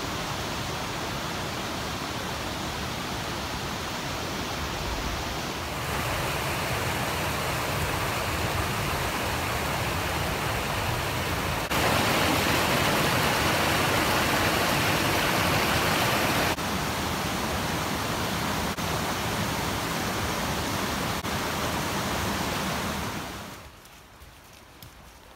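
Rushing mountain creek water, a steady hiss with no clear rhythm. It jumps abruptly louder in steps about 6 and 12 seconds in, drops back a few seconds later, and falls away suddenly near the end.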